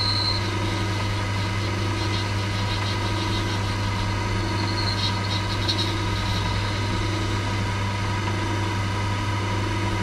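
Myford lathe running steadily with a constant hum as a boring bar takes a light freshening cut in the bore of a small anti-siphon valve seat, with faint high scraping now and then.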